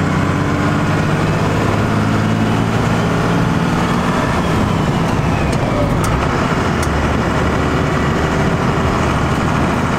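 Compound-turbocharged 12-valve Cummins 5.9 L inline-six diesel running as the truck is driven, heard from inside the cab. A turbo whine glides down in pitch about four to six seconds in.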